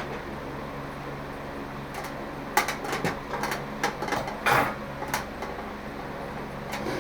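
A run of sharp clicks and light knocks, like hardware and parts being handled, over a steady low hum; the knocks bunch together in the middle, then stop.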